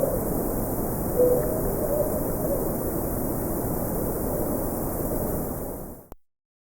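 Hissy, heavily amplified night field recording with a few faint, short wavering calls, which the uploader presents as potential Sasquatch vocals. It fades out to silence about six seconds in.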